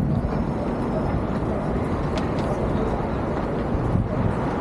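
City street ambience: a steady, low traffic rumble, with a couple of short sharp clicks about two seconds in.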